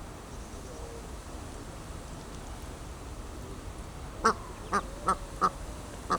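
Duck quacking in a quick series of short calls, about three a second, starting about four seconds in after a few seconds of low background noise.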